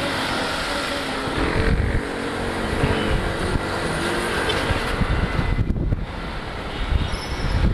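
Motorcycle riding in city traffic: wind rushing over the microphone on top of the engine and road noise, with the engine pitch rising a little as it speeds up a couple of seconds in.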